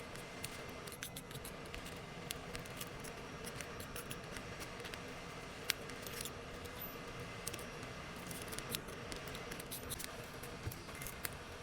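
Small irregular clicks and scrapes of hand tools working on an iPhone 12 Pro Max's cracked back glass, over a faint steady hum.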